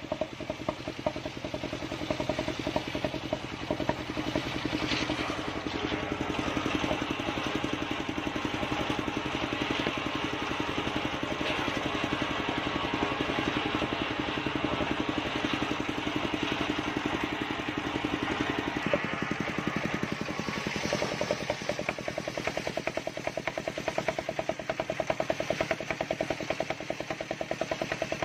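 Engine-driven sawmill circular saw running steadily while ripping a mindi log into planks, the engine's even beat under the noise of the blade cutting; the sound changes about 19 seconds in.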